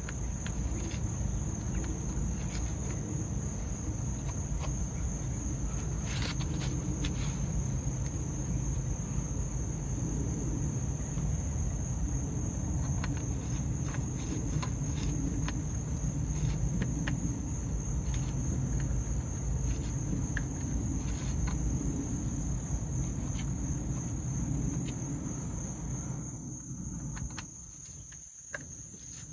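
Crickets trilling steadily and high-pitched over a low rumble. Faint scattered clicks and scrapes come from a deburring tool being turned inside the cut end of a copper line-set tube. The rumble drops away near the end.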